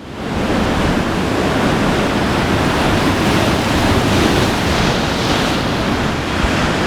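Strong wind and ocean surf, a loud steady rush with wind buffeting the microphone.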